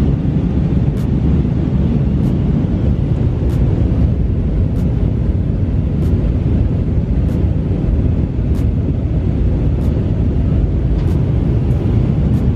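Steady cabin noise of a jet airliner in flight: engine and airflow noise, strongest in the low range and even throughout.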